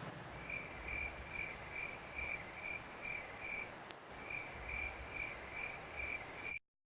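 Cricket chirping sound effect: a steady train of high-pitched chirps, about two to three a second, with a short pause near the middle, cutting off suddenly near the end.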